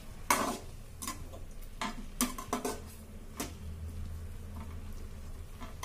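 Metal slotted spatula stirring chopped capsicum and onion in curd in a metal kadai, knocking and scraping against the pan in about ten irregular light clicks.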